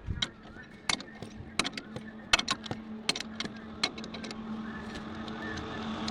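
Irregular sharp metallic clicks and taps of hand tools working on a tractor wheel during a tyre repair. A steady vehicle engine hum comes in and grows louder toward the end.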